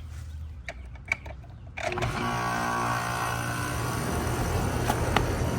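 A few clicks, then about two seconds in an outdoor AC condensing unit starts up: the compressor and condenser fan motor come on together and settle into a steady running hum. The unit is starting and running on a newly fitted 45/5 dual run capacitor that replaced a bad one.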